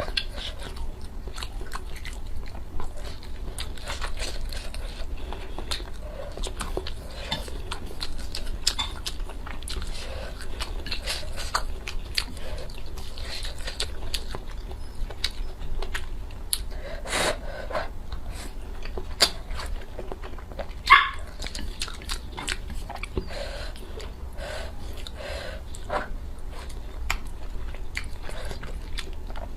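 Close-miked chewing and biting of food, with many small clicks and crunches throughout. A brief, louder pitched sound stands out about two-thirds of the way through.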